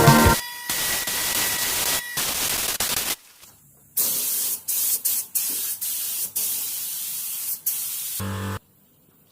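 Paint being sprayed: an even hiss in several stretches of one to four seconds, stopping and starting with short breaks, then cutting off near the end.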